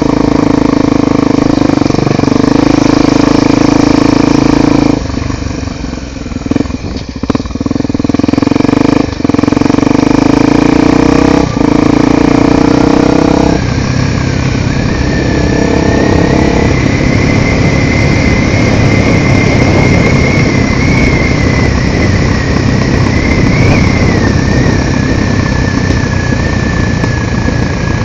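Honda XR 250 Tornado motorcycle's single-cylinder engine running on a ride. Its note holds steady for the first half, dips and wavers for a few seconds, then from about halfway gives way to a rougher, noisier sound with a high whine.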